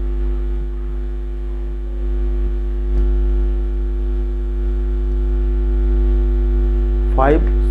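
Loud, steady electrical mains hum with a stack of even overtones, picked up by the recording. A single faint click about three seconds in, and a man's voice starts just before the end.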